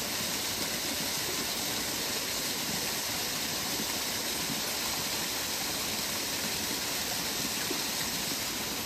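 Steady rush of flowing water from a stream, an even hiss that keeps the same level throughout.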